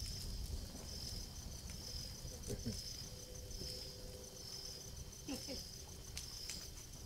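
Insect chirping in a high-pitched trill that pulses at an even rhythm a little more than once a second, with a few faint clicks and a low rumble underneath.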